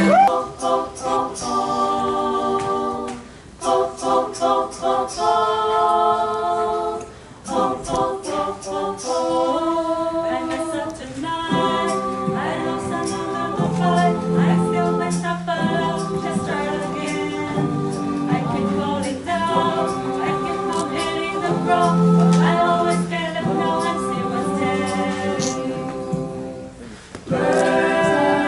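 Mixed-voice a cappella group of men and women singing in harmony, with short breaks between phrases and a longer pause near the end.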